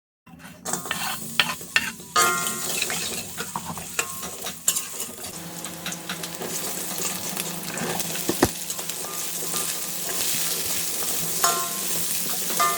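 Capcay stir-fry sizzling in hot oil in a pan as it is stirred. A spatula clinks and scrapes against the pan, busiest in the first few seconds, with a sharp knock about eight seconds in.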